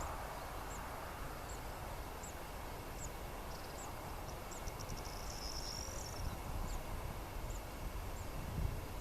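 Outdoor ambience: a short, high chirp repeating about every two-thirds of a second, from a small bird or insect, with a brief trill about five seconds in, over a low steady rumble.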